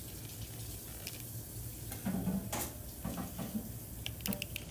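A cutting board being washed at a kitchen sink: faint splashing from the tap, with a few short knocks and scrapes, the loudest about two seconds in. A steady low hum runs underneath.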